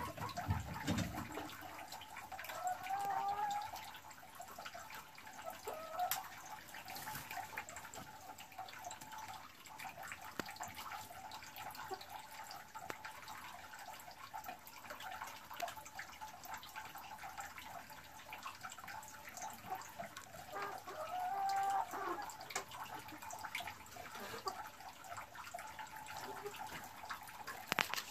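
Boris Brown hen sitting in a straw nest box before laying her first egg, giving a few soft, low, wavering calls, the longest about three-quarters of the way in. Behind them are a steady faint hiss and scattered small clicks.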